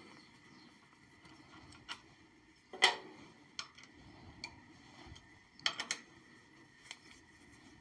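Light metallic clicks of a hex key and small screws as the headstock cover of a Cyrrtec Profiturn 2865GC lathe is unscrewed: scattered single ticks, the loudest about three seconds in, with a quick run of clicks near six seconds.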